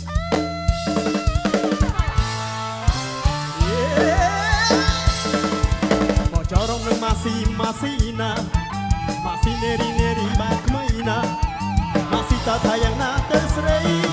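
Background music with a steady drum-kit beat and a bass line under a wavering melody.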